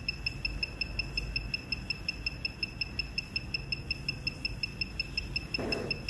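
Rapid, evenly spaced high-pitched electronic beeps, about six a second, over a low steady hum: the Autoshop Smarttool 2 ECU programmer beeping while a Honda ECU remap is in progress.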